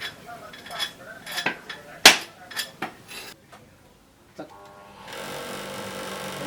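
Hard kitchen knocks and clinks, several in the first three seconds with the loudest about two seconds in, then a steady motor hum from about five seconds in.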